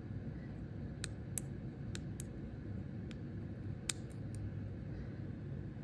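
About six faint, sharp clicks, scattered irregularly, as bird netting is worked off a snake by hand, over a steady low room hum.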